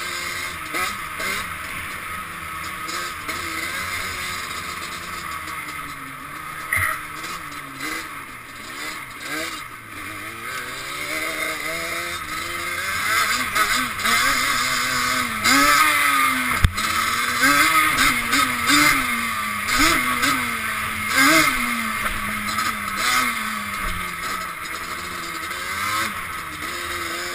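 Dirt bike engine revving up and down as the bike is ridden over a dirt track, its pitch rising and dropping again and again. There is a sharp knock about two-thirds of the way through.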